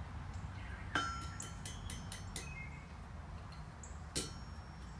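Blacksmith's hammer and tools striking iron at the anvil while an S-hook is forged. Two sharp ringing metal strikes, about a second in and about four seconds in, with a few lighter clinks between them, over a low steady hum.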